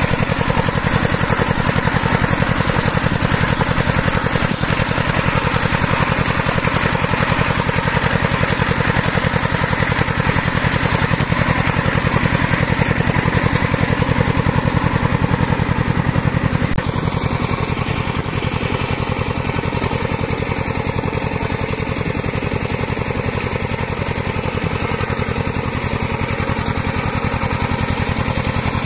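Single-cylinder diesel engine of a two-wheel power tiller running steadily under load, with a fast, even chugging rhythm as it drags a leveling board through paddy mud. The sound is slightly quieter from a little past halfway.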